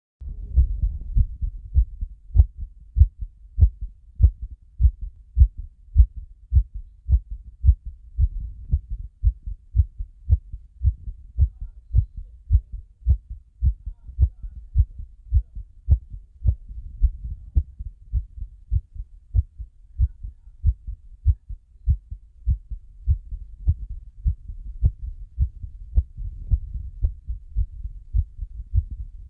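Human heartbeat: steady, regular low beats repeating a little more than once a second.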